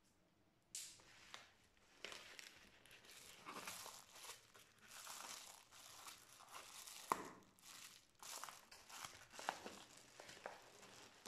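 Plastic courier mailer crinkling and rustling as hands pull it open and handle the parcel, with irregular sharp crackles; it starts suddenly about a second in, and the sharpest snap comes about seven seconds in.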